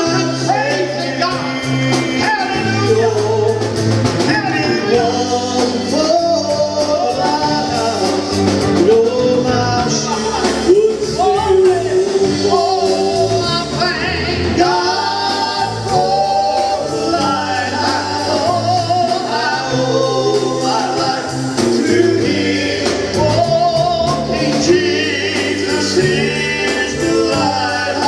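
Live worship music: a male voice singing a melody over a band with a drum kit keeping a steady beat on the cymbals and sustained low bass notes.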